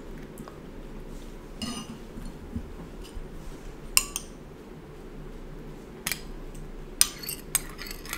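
Metal spoon clinking and scraping against a china teacup, a few sharp clinks with short rings, loudest about four and seven seconds in.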